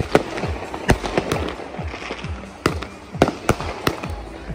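Fireworks going off: a rapid, irregular run of sharp bangs, two or three a second, over a steady crackling haze.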